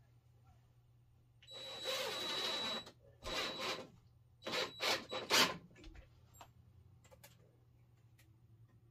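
Power drill running in short bursts: one of about a second and a half with a steady whine, a shorter one, then several quick pulses about halfway through.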